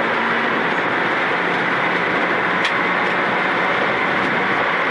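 Rally car at speed on a gravel road, heard inside its cockpit: a steady engine drone under a continuous rushing noise of tyres on gravel, with one sharp tick about two and a half seconds in.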